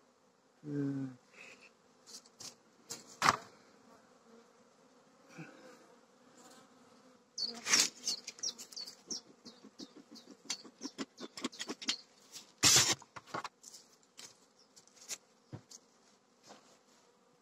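Carniolan honeybees buzzing over the open frames of a hive, a faint steady hum. Through the middle comes a quick run of sharp clicks and knocks, the loudest a crack near the end of that run.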